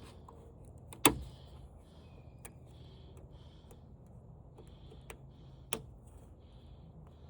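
Sharp plastic clicks from unclipping and handling wiring on a flat-screen TV's chassis: a loud click about a second in and another near six seconds, with fainter clicks and soft handling noise between.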